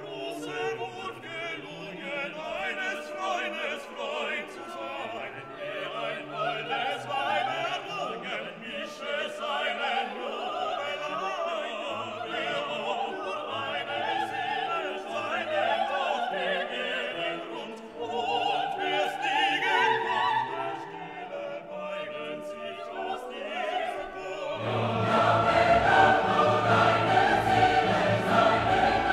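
Background music: classical orchestral music with choir singing, growing louder and fuller about twenty-five seconds in.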